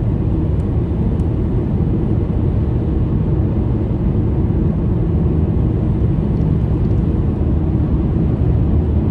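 Steady low rumble of a car being driven: road and engine noise.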